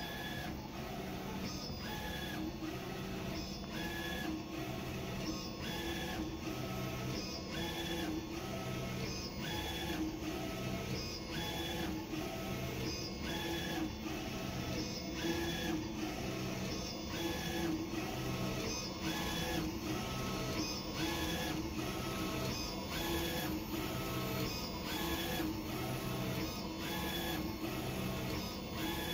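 Roland VersaUV flatbed UV printer printing: the print-head carriage shuttles back and forth in a steady repeating cycle, about once a second, each pass bringing a short whirring tone and a tick.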